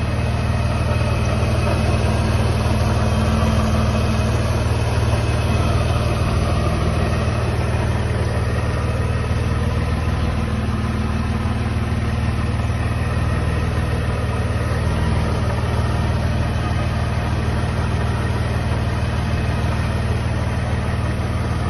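Mercedes-Benz W140 S320's 3.2-litre straight-six engine idling steadily.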